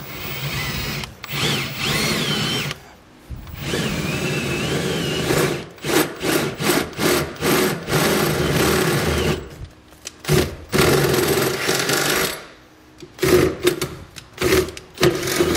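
Cordless drill boring out pilot holes to full size through a metal pickup-bed floor. It runs in repeated bursts: two longer runs in the first half with a wavering high whine as the bit cuts, then quick stop-start pulses on the trigger.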